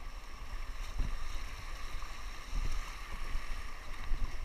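Rushing whitewater with wind buffeting the microphone: a steady hiss of moving water over a gusty low rumble.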